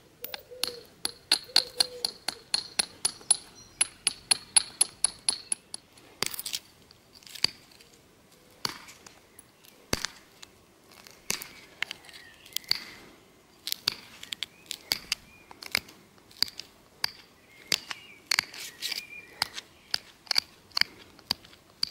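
Flint being knapped: a run of sharp stone-on-stone clicks and clinks. For the first five seconds they come quickly, about four a second, with a ringing tone over them; after that the strikes are slower and irregular.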